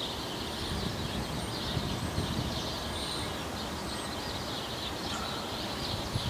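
Open-top hopper cars of a freight train rolling past, a steady low rumble, with birds chirping over it.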